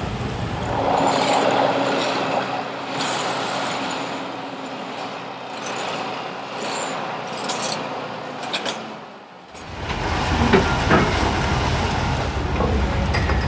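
Heavy machinery in a work yard: a large vehicle's engine running with a steady hum, and a few sharp metallic knocks. The sound changes abruptly a little over nine seconds in.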